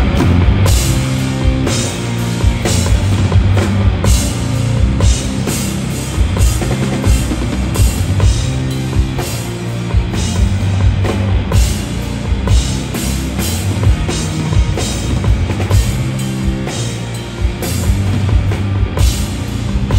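Live rock band playing an instrumental passage, loud drum kit with kick and cymbal hits in a steady beat over bass and guitars, heard from the audience.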